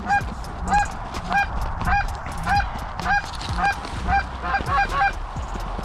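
Canada goose honking in a steady series, one voice about every 0.6 s. Each honk breaks from a low note up to a high one, and the honks quicken into short, fast clucks near the end.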